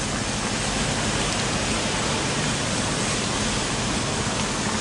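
A wide pan of tilapia stew with tomato, eggplant and chilli sauce boiling hard, a steady bubbling hiss.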